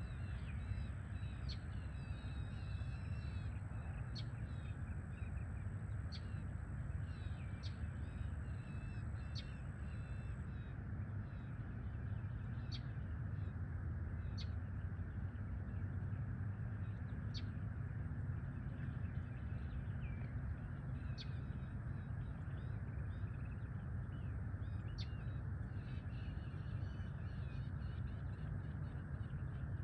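Small birds calling over a steady low rumble. The calls are short, sharp chirps and brief warbling phrases every second or two.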